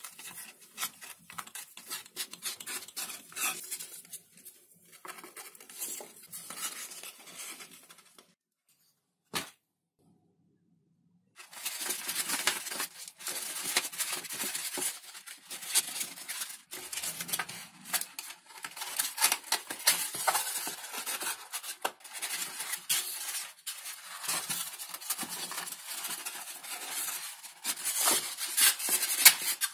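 Close-up handling of foam model-aircraft parts: a thin foam sheet being curled around a metal tube, then wires and a speed controller being pushed into a foam fuselage, giving a dense run of small rubs, scrapes and light clicks. The sound drops out for about three seconds a third of the way in, broken by a single click.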